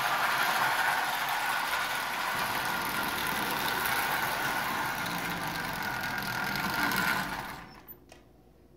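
Marx 999 tinplate toy steam locomotive and tin-litho cars running on old original Marx tin track: a steady clattering rumble from the motor and wheels with a faint whine. The sound falls away about seven and a half seconds in, leaving a few faint clicks.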